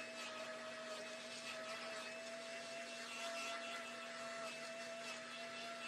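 Small battery-powered handheld fan running with a steady, even whir and hum.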